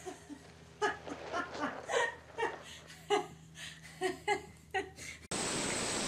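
A person laughing in short, repeated bursts. About five seconds in, it cuts off suddenly into a steady rushing hiss.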